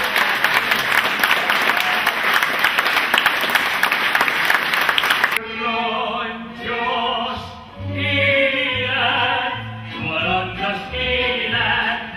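Audience applauding, cut off abruptly about five seconds in. Operetta singing with a bass accompaniment follows.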